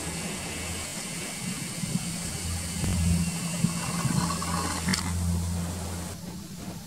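A steady low mechanical hum under a wash of outdoor background noise, cutting off about six seconds in, with a couple of single sharp taps.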